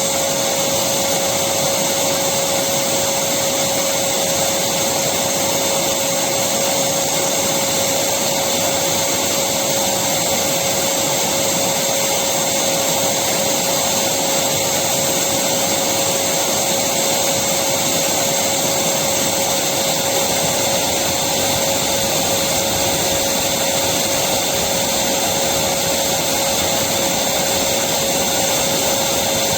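Electric vacuum cleaner running steadily, an even rush of air with a constant motor tone.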